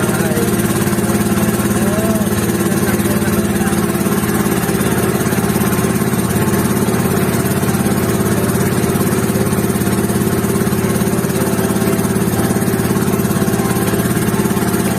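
A motorboat's engine running at a steady speed.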